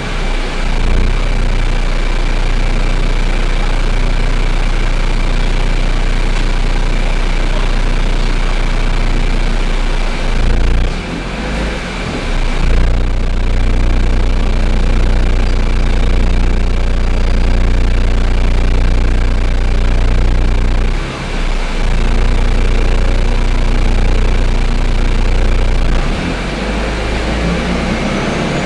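Inside a Volvo B12BLEA bus: the rear-mounted Volvo DH12E turbocharged six-cylinder diesel runs with a steady low hum through the Voith automatic gearbox, while the Volgren body's panels and fittings rattle, described as horrendous. The engine sound drops briefly twice, about a third and two thirds of the way through, and a faint high rising whine comes in near the end.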